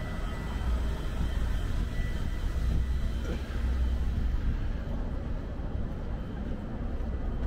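Steady low rumble of motor vehicle traffic on a city street.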